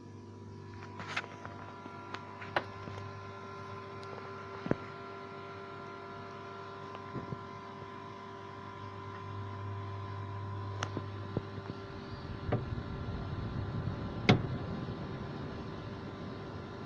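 Homemade automatic egg incubator running: a steady mechanical hum with a few fixed tones, broken by scattered sharp clicks and knocks, the loudest about two-thirds of the way through.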